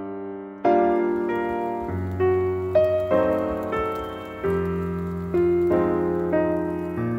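Background piano music: slow chords, each struck and left to fade before the next, about one a second.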